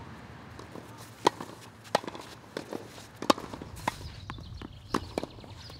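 Tennis balls struck by racquets in a rally: sharp, uneven pops, four loud ones and several fainter knocks between them.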